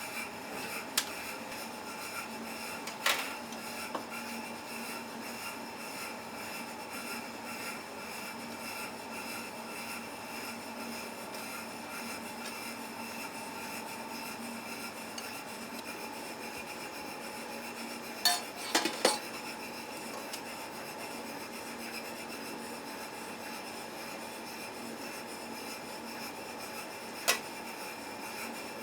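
Kitchen prep sounds: a few sharp clinks of metal utensils against pots and dishes, loudest in a short cluster about two-thirds of the way through, over a steady mechanical hum.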